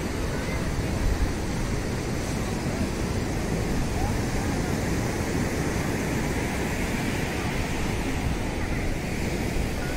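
Surf breaking and washing up the beach in a steady rush, with wind rumbling on the microphone and faint voices of people on the beach.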